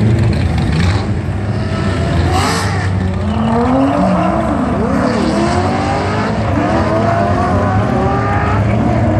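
A twin-turbo V6 Nissan GT-R and a V8 Corvette Z06 launching side by side off a drag strip start line and accelerating hard away. Their engines rise in pitch again and again as they shift up through the gears, with a brief noisy burst soon after launch.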